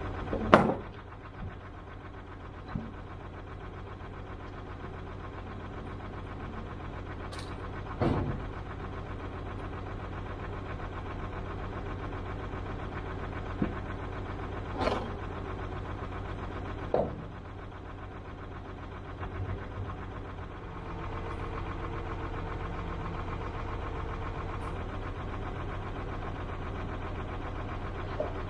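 Diesel engine of a DAF recovery truck idling steadily, with a few sharp knocks of timber planks being set down on the tarmac, the loudest about half a second in. About twenty seconds in the engine note grows a little louder.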